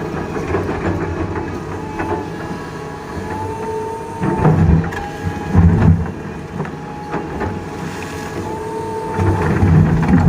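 Doosan DX225LCA excavator working, its diesel engine running steadily with a low rumble that swells three times, and a thin whine that rises and fades twice.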